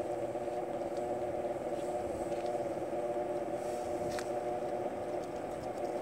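Galaxy 4733 box fan running steadily on its low speed setting: a steady hum made of several held tones from the motor and spinning blades.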